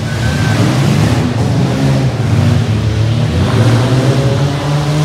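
Engines of several demolition derby mini trucks running and revving, their pitch rising and falling as they push and ram one another.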